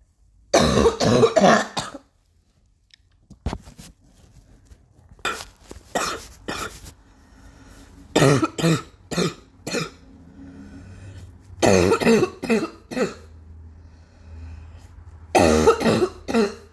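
Repeated fits of coughing: five bouts of several coughs in quick succession, separated by pauses of a couple of seconds. There is a single sharp click about three and a half seconds in.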